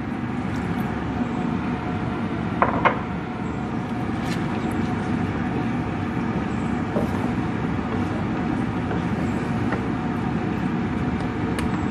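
Steady simmering hiss of a watery masala gravy in a non-stick frying pan over a gas flame, with a wooden spatula stirring through it and knocking against the pan a couple of times about three seconds in.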